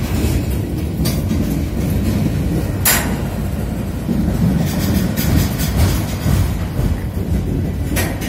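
Freight train of covered hopper cars rumbling at close range, with a few sharp metallic clanks; the loudest comes about three seconds in and another near the end.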